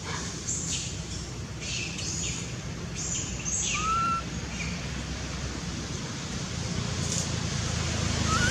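Short, high-pitched animal chirps and calls, several in the first four seconds, with one rising whistle-like call about four seconds in, over a steady low rumble.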